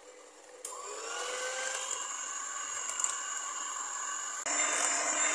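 Electric hand mixer starting up about half a second in, its motor whine rising in pitch and settling to a steady tone as the beaters whip a thick custard-and-oat mixture; it turns louder about four and a half seconds in.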